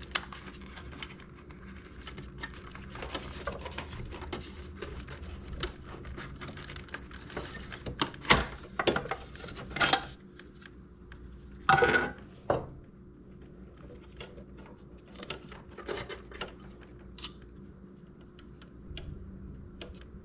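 Scattered clicks, taps and rattles of wiring and plastic parts being handled in an engine bay, with a few louder knocks about a third of the way in and again after the middle.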